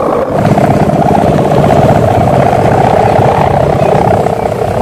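Sendaren kite hummers on flying bapangan kites: a loud, steady buzzing drone from the taut strips vibrating in the wind. It dips briefly about a quarter second in, then holds.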